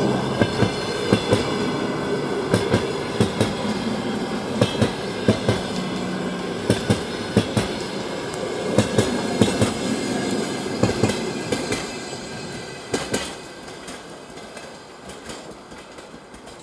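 Long-distance passenger train hauled by an EP20 electric locomotive rolling past at speed, its wheels clicking over the rail joints in quick pairs and groups. The clatter fades away over the last few seconds as the end of the train recedes.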